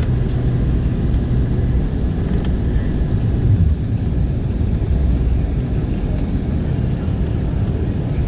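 Cabin noise inside an Embraer 190 airliner on its approach: a steady low rumble of engines and airflow, with a brief swell and slight dip in level about three and a half seconds in.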